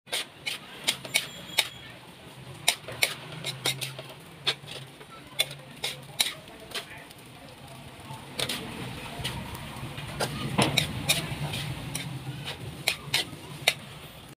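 Metal spatula and spoon scraping and clinking against a metal wok as fried rice is stirred and tossed, with many sharp clicks over a low steady hum.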